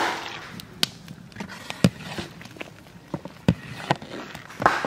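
A long metal ladle stirring a big aluminium pot of lentil dal, knocking sharply against the pot about once a second over a faint hiss.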